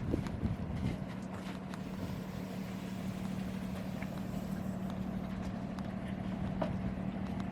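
A steady low mechanical hum at one even pitch over a noisy background, with a few faint clicks.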